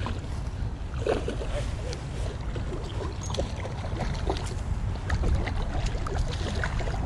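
Wind rumbling on the microphone, with short splashes as a hooked trout thrashes at the surface next to the bank.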